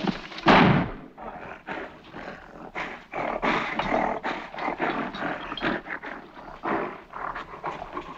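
Gorilla growls and grunts dubbed in as a film sound effect for a costumed gorilla: one loud growl about half a second in, then a run of short, rough grunts and huffs.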